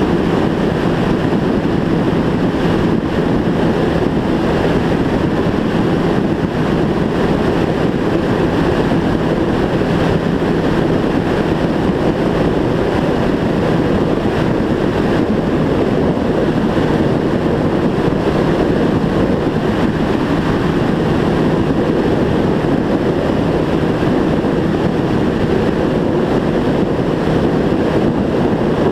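Sport motorcycle engine running at a steady, unchanging speed while riding, under heavy wind rush on the camera's microphone.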